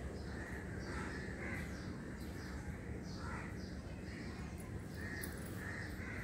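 Crows cawing faintly in the background, short calls every second or so, over a low steady hum.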